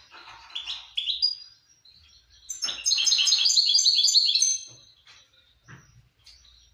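Small caged songbird singing: a few sharp chirps in the first second or so, then a loud, fast trill of high repeated notes from about two and a half to four and a half seconds in, and a couple of short chirps afterwards.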